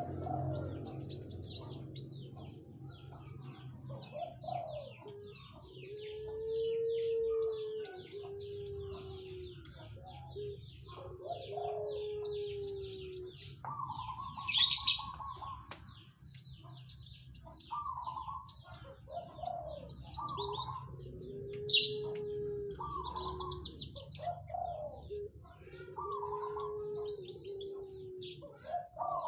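A songbird's chattering song: fast, high chirps run on without pause, broken every few seconds by low, drawn-out notes. Twice, near the middle, comes a short, very loud harsh call.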